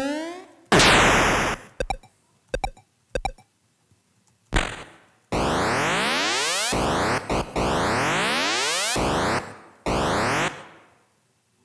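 Synthesized sound effects played back and replayed: a noisy burst with a falling high tone, a few short blips, then repeated fast rising pitch sweeps that start and stop abruptly. These are draft versions of a pop-out effect for a joystick.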